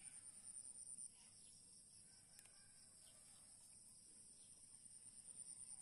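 Faint, high-pitched chirring of insects such as crickets, a steady trill that swells into a quick pulsing near the start and again near the end.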